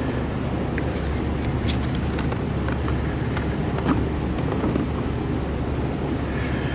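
Steady low rumble and hiss of a shop's background noise, with a few faint clicks and taps scattered through it.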